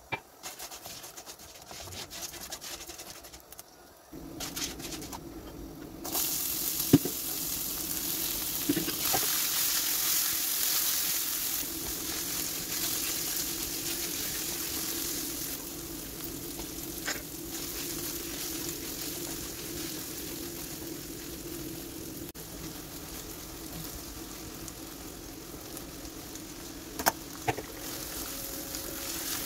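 Chopped peppers and carrots sizzling in hot oil in a nonstick pot while being stirred with a metal spoon, the sizzle swelling about six seconds in, with a few sharp knocks of the spoon against the pan.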